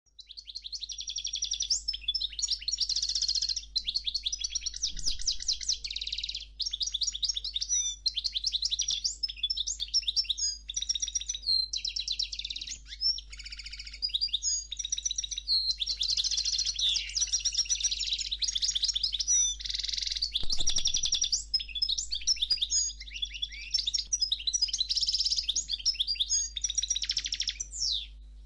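A finch singing a long, continuous, high-pitched song of rapid trills and twittering phrases, with only brief breaks.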